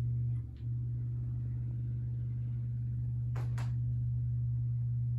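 Litex Ellington ceiling fan's cheap spinner motor humming loudly on its max setting, a steady low hum. The hum dips briefly about half a second in as the wall control is turned up, and two short clicks come a little after three seconds.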